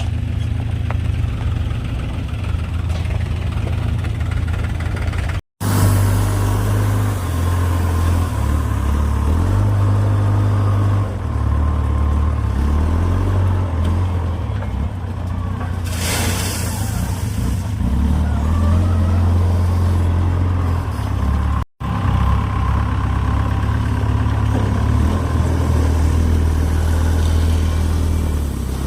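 JCB 3DX backhoe loader's diesel engine running under working load, its pitch and level stepping up and down as it revs. There is a short hiss just past halfway, and the sound cuts out for an instant twice.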